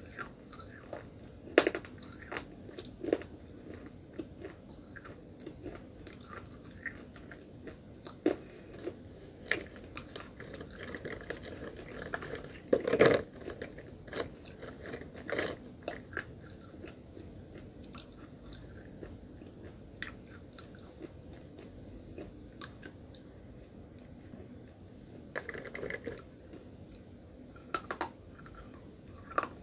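A person biting and chewing hard slate pencil sticks: sharp crunches every few seconds, the loudest cluster about 13 seconds in, with quieter grinding chews between.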